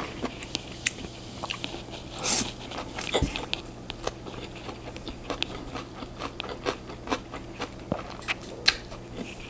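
Close-up eating sounds: a person slurping in a mouthful of stir-fried noodles, with one louder slurp about two seconds in, then chewing with many small wet mouth clicks.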